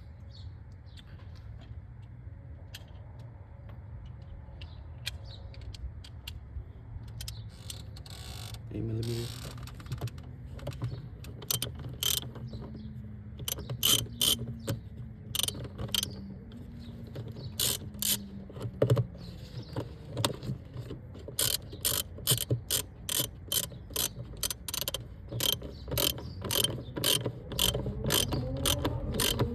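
Hand ratchet with an 8 mm socket clicking in short quick runs as bolts are turned, the clicking starting about a third of the way in and carrying on to the end. A rising whine begins near the end.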